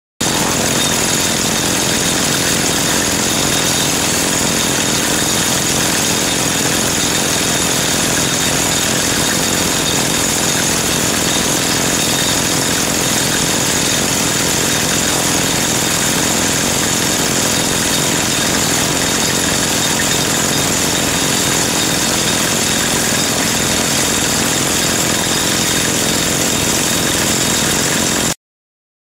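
Seismic shot-hole drilling rig running and drilling: a loud, steady machine noise with a strong hiss. It stops abruptly near the end.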